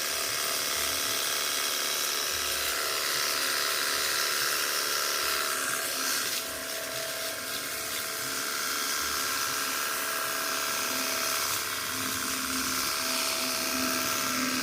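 Cordless battery-powered pressure washer running, its electric motor and pump giving a steady high whine along with the hiss of water spraying from the 25-degree nozzle. The sound dips slightly about six seconds in, then carries on steadily.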